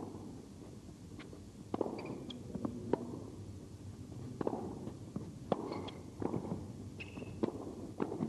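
Tennis rally on an indoor hard court: a series of sharp pops from rackets striking the ball and the ball bouncing, with a few short shoe squeaks on the court surface.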